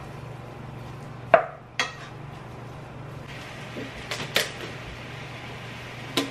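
Kitchen clatter from containers and utensils being handled and set down on a counter. There are a few sharp knocks, the loudest about a second and a half in, and a cluster of clacks with a short rustle of a plastic tub around four seconds in, over a steady low hum.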